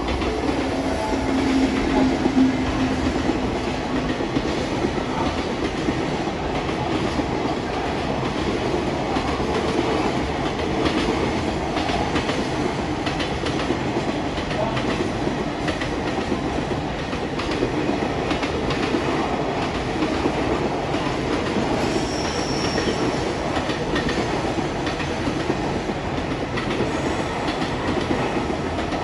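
Container freight train, hauled by an EF210 electric locomotive, running past at a steady pace: a continuous rumble and clatter of wagon wheels on the rails.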